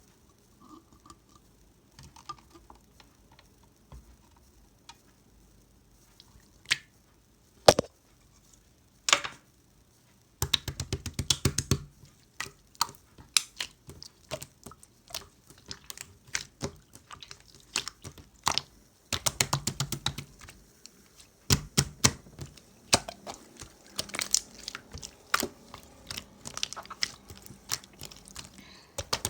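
Jelly-textured slime being pressed and squeezed by hand, making sticky clicks and pops: a few scattered pops in the first ten seconds, then dense runs of rapid crackling clicks.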